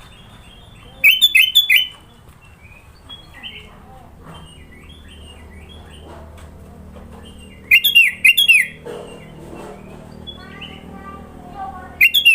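Sooty-headed bulbul (kutilang) singing: three loud bursts of quick, sharp whistled notes, about a second in, around eight seconds in and again at the end, with softer chirps and twitters between.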